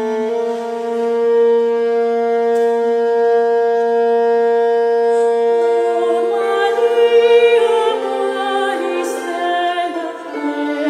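Medieval ensemble music: a hurdy-gurdy holds a steady two-note drone, and about six seconds in further melodic parts with wavering pitch join over it.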